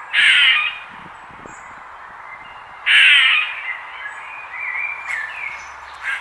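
A bird calling loudly twice, about three seconds apart, with softer short calls in between.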